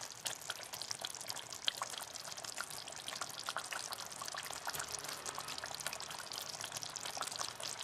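Chicken curry gravy simmering in an open pot, bubbling with a steady crackle of small pops and ticks.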